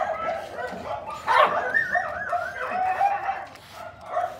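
A dog barking and whining in a run of short yips, with a long wavering whine about a second and a half in.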